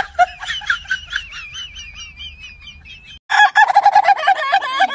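A high warbling whistle-like tone for about three seconds, then, after a sudden cut, a rooster calling loudly in a fast stuttering run of notes, about ten a second.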